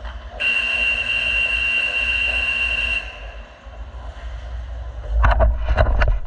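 A steady, high-pitched horn tone held for about two and a half seconds, over the low hum of the rink. Near the end comes a quick run of knocks and scrapes from the camera being handled.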